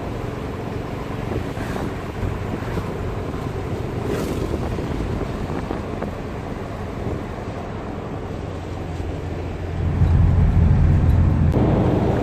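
Volkswagen Type 2 bus running on the road: a steady engine drone with road and wind noise, the engine growing louder about ten seconds in as it pulls harder.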